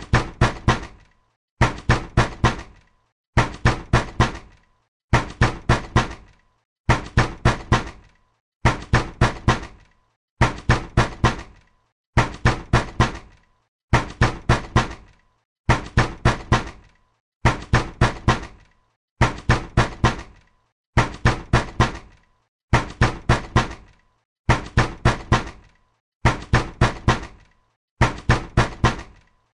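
Fist pounding hard on a door: short bursts of rapid heavy knocks, repeating in an even loop about every second and three-quarters, like someone angrily demanding to be let in.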